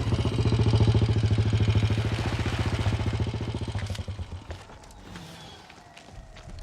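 Motorcycle engine running with a rapid, even beat as the bike rides in, then slowing and dying away about four seconds in as it pulls up. A faint falling tone follows.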